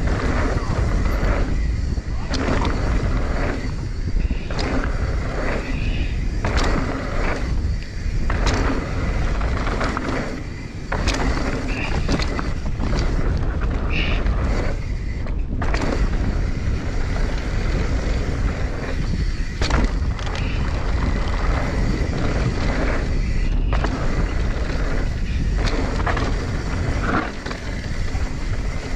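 Mountain bike ridden down a rough trail: wind rumbling steadily on the microphone, and the bike rattling and knocking again and again over bumps.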